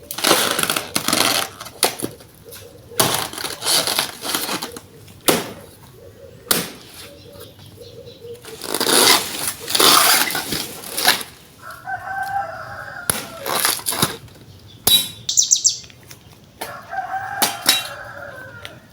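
Repeated bursts of rustling, flapping noise, with two short runs of chicken calls in the second half.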